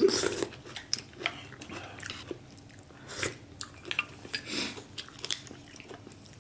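People eating at a table: chewing and biting, with scattered light clicks of chopsticks and a spoon against bowls and plates.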